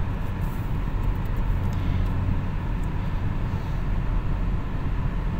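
Steady in-cabin road and engine noise of an Opel Astra G cruising on a highway, a low even rumble with no distinct events.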